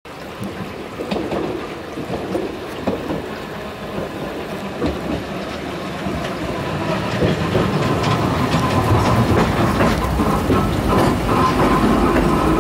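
Manyōsen streetcar running on its rails and pulling in toward the platform, its wheels clattering, growing louder about halfway through, with a steady whine coming in near the end.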